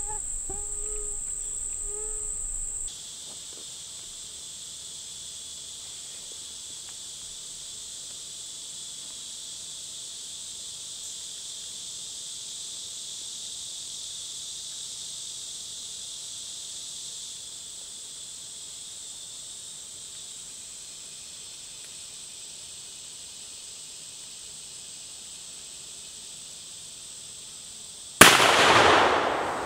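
Steady high-pitched drone of insects in the woods, then, near the end, a single loud shotgun blast that dies away over about a second and a half.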